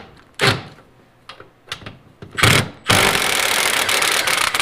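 Milwaukee Fuel cordless impact wrench running for about two seconds in a rapid, steady hammering. It starts a little under three seconds in and stops at the end. Before it come a few sharp knocks and clinks from handling the tool and socket.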